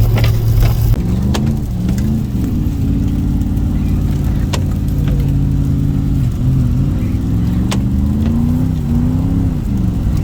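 Car engine revving, its pitch rising and falling in waves twice over a steady lower engine drone, with a few short clicks.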